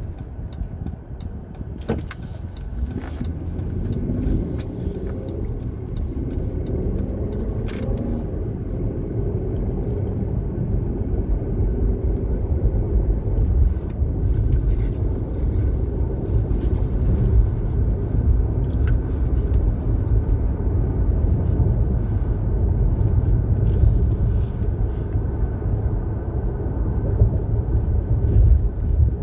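Inside a moving car: low engine and road rumble that grows louder a few seconds in as the car picks up speed, with a faint regular ticking over the first several seconds.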